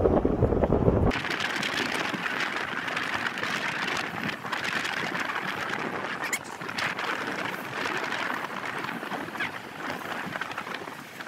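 Small waves washing onto a sandy beach, a steady rushing surf. For about the first second, wind buffets the microphone with a low rumble, which cuts off abruptly.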